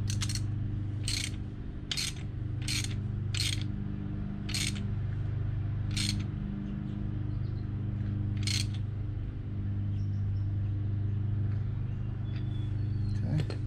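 Socket ratchet clicking in separate strokes while a new NGK spark plug is tightened into the 125cc motorcycle engine: about eight sharp clicks, irregularly spaced, most in the first five seconds and the last about eight and a half seconds in. A steady low hum continues underneath.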